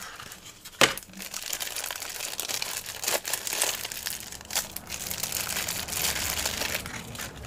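Product packaging being handled and crinkled during unboxing, with a sharp click about a second in and then a run of crackly rustling.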